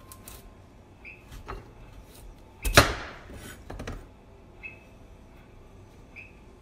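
Chef's knife cutting a carrot lengthwise on a plastic cutting board: scattered knocks of the blade on the board, with one loud, sharp knock about three seconds in.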